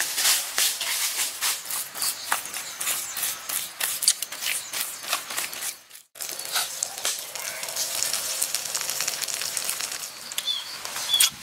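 Dense crackling and rustling full of sharp ticks. It breaks off briefly about six seconds in, then resumes as a steadier hissing crackle.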